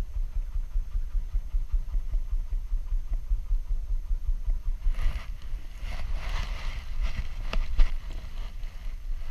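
Wind buffeting the microphone of a GoPro strapped to a dog's back, giving a gusting low rumble. From about five seconds in there is scraping and a few sharp clicks as the dog moves over rock.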